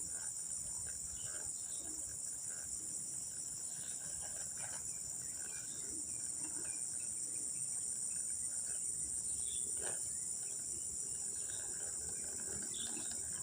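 Steady high-pitched insect chorus chirring without a break, with faint scattered small ticks beneath it.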